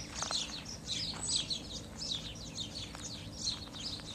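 Small birds chirping busily, many quick high chirps each falling in pitch, several a second, over a faint steady hum.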